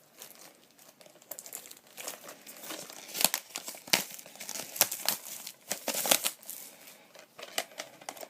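Plastic shrink-wrap crinkling and tearing as it is ripped and pulled off a steelbook case, in irregular crackly bursts that are loudest in the middle.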